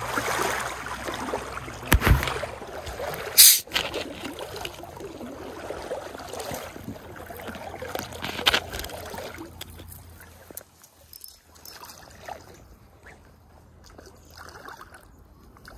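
Stream water rippling and trickling, quieter in the second half, with a few sharp clicks and knocks. The loudest knock comes about three and a half seconds in.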